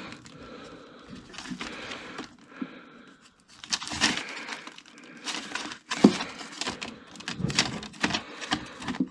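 Records being handled and shuffled through by hand: irregular knocks, scrapes and paper-sleeve rustling, louder and busier from about four seconds in.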